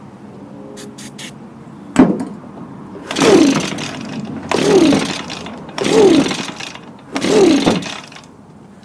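Echo ES250 handheld blower's small two-stroke engine being pull-started: four hard recoil-starter pulls about 1.3 s apart, each a rushing whir that falls in pitch as the rope runs out, the engine cranking on ether but not catching. A sharp knock comes about two seconds in, before the first pull.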